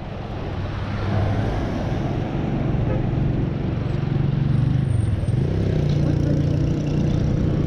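Road traffic passing close by: motor vehicle engines with a steady low hum whose pitch rises about five and a half seconds in, as a vehicle such as a motorcycle speeds up alongside.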